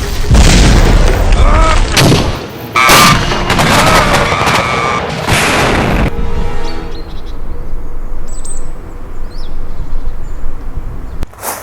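A run of loud, noisy bangs over the first six seconds or so, then a quieter stretch of noise, and a single sharp crack near the end.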